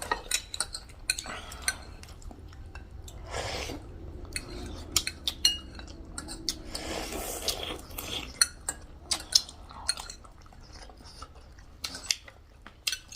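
Spoons and forks clinking against bowls and plates during a meal, many scattered light clicks and scrapes, with a couple of brief hissy noises in between.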